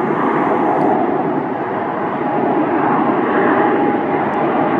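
Air France Boeing 777's twin GE90 jet engines running on the runway: a steady roar with a high, level whine.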